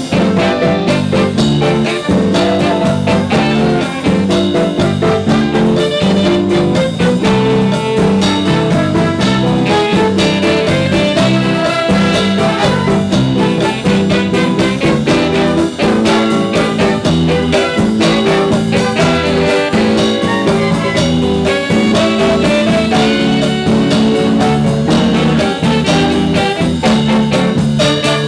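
Upbeat Latin-jazz instrumental: brass lines and keyboard over a steady drum and percussion beat, with no singing.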